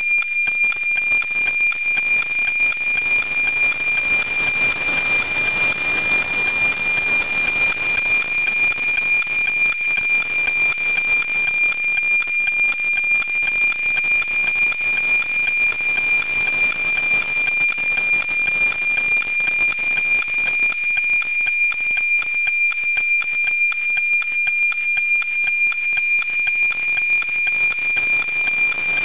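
NOAA-19 weather satellite APT image signal, FM-demodulated by an RTL-SDR receiver: a steady high tone pulsing with an even, rapid ticking rhythm from the image line sync, over radio hiss. This is the signal being decoded into a picture as it is received.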